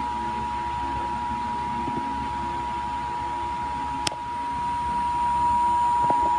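Emergency Alert System attention signal: two steady tones sounding together (853 and 960 Hz), the alert tone that comes before an emergency broadcast message. A sharp click about four seconds in, after which the tone is a little louder.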